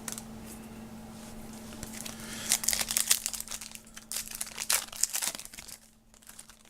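Trading card pack wrapper crinkling and tearing as it is opened, in irregular crackles that start about two and a half seconds in, over a faint steady hum.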